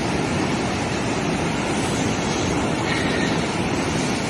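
Fast-flowing floodwater rushing down a street, a steady, even rush of water noise.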